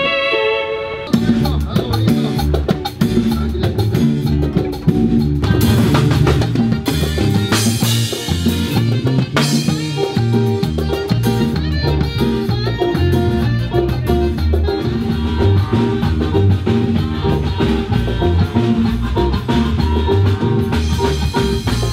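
A live band playing with drum kit, bass and electric guitars, coming in loud about a second in with a steady beat.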